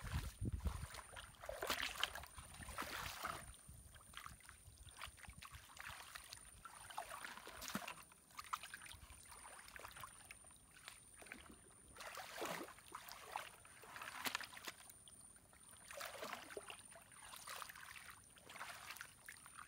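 Shallow muddy water sloshing and splashing in irregular bursts, every second or two, as someone wades through it and works a crab hook in the mud.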